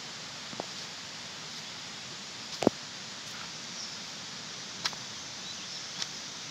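Steady outdoor background hiss with four sharp clicks or knocks, the loudest about two and a half seconds in, and a few faint high chirps.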